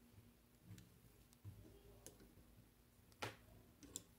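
Near silence: room tone with a few soft clicks from hands working the plastic peg knitting loom and its yarn, the clearest about three seconds in.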